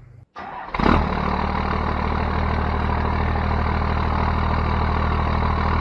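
A first-generation 12-valve Cummins diesel engine comes in sharply about a second in, then idles steadily.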